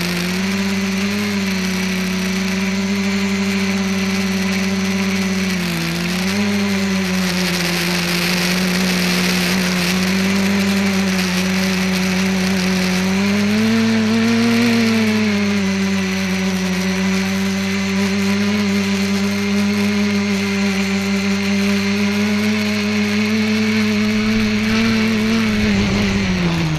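ETFD2 multicopter's electric motors and propellers buzzing steadily in flight, heard from the onboard camera, the pitch dipping and rising with throttle changes. Near the end the buzz falls sharply in pitch as the motors spool down on landing.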